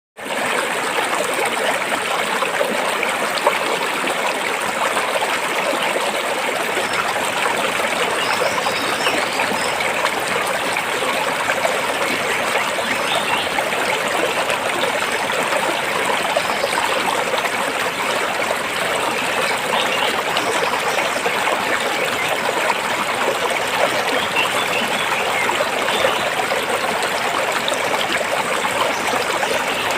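Stream water flowing steadily over and between rocks, an even rushing with trickling and splashing.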